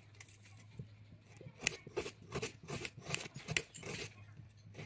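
Kitchen knife slicing through a red onion against a hard board: a run of crisp cuts, about two or three a second, growing stronger about a second and a half in, over a low steady hum.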